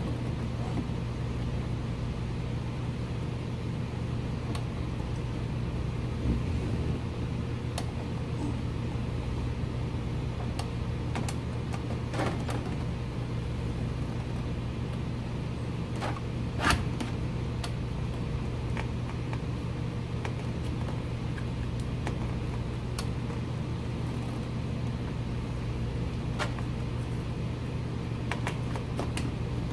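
Occasional light clicks and knocks of a wooden dash gauge panel being handled and pushed into a car dashboard, the sharpest a little past halfway, over a steady low hum.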